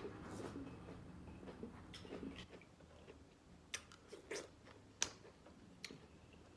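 Close-up mukbang eating of seafood-boil crawfish and crab: a person biting and chewing, with several sharp mouth clicks and smacks about two to six seconds in.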